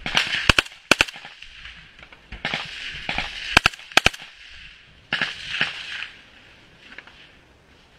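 Small-arms gunfire in a trench fight: sharp close rifle shots, singly and in quick pairs, about half a second, one second and four seconds in, among longer echoing bursts of firing that die away after about six seconds.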